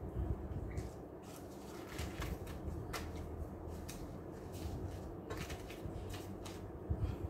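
Hands handling paper and plastic packets, rustling and crinkling in short irregular bursts.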